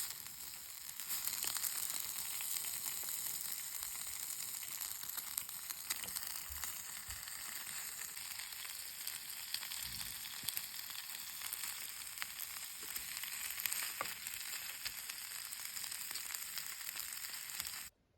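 Food sizzling and frying in a hot pan: a steady hiss scattered with small pops, cutting off abruptly near the end.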